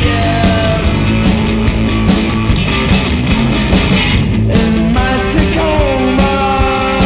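Loud rock music from a full band, with a steady drum beat; about five seconds in the band moves to long held notes.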